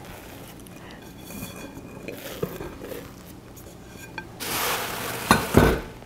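Hands working soft bread dough in a glass bowl and turning it out onto a stone counter, with soft irregular handling noise. A louder spell of handling follows near the end, with two dull knocks close together.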